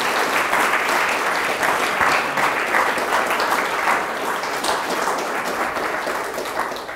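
Audience applauding: dense, steady clapping from a seated crowd that tapers off at the very end.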